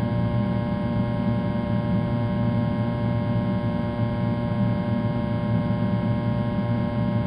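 Doosan SMX3100 mill-turn machine running a finishing pass, an end mill cutting 316 stainless steel under flood coolant: a steady, even hum with several held tones.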